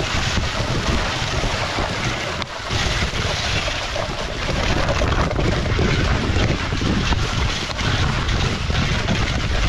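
Wooden dogsled moving over a snowy trail: a steady hiss and rumble of the runners on the snow, with wind buffeting the microphone.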